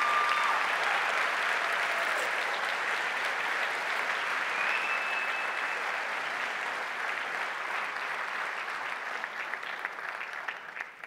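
Audience applauding, the clapping thinning near the end into a few scattered claps before dying away.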